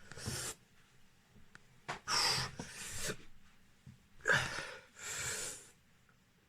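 A man panting and gasping from the burn of a very hot chili pepper: three heavy, breathy breaths about two seconds apart, then quiet.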